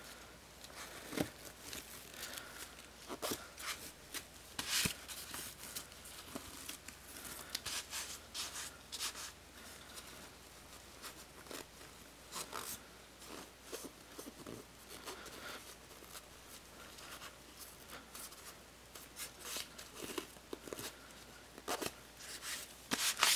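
Hands rubbing and pressing stretch fabric down onto a glue-sprayed foam glove: soft, irregular rustles and swishes of fabric, with a few light knocks of handling.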